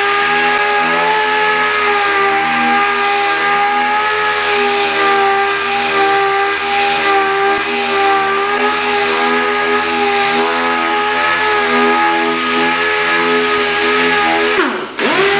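Pneumatic dual-action (DA) sander running steadily against a plastic bumper cover: an even whine with air hiss. Just before the end the whine drops sharply in pitch and climbs straight back up as the tool briefly slows.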